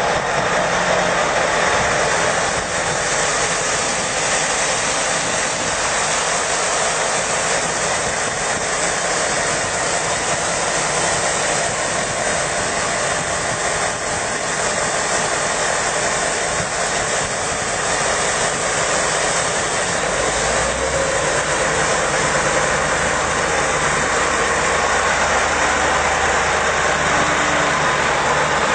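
Steady hiss of water spraying from a heavy-duty haul-truck wash system. About twenty seconds in, a low, steady engine hum joins it.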